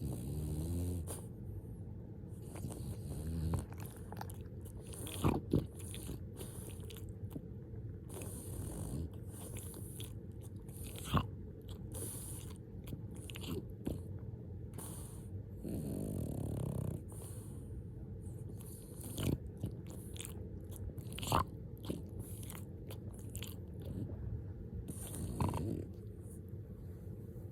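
French bulldog snoring and breathing noisily in its sleep, with a few short sharp clicking mouth sounds scattered through.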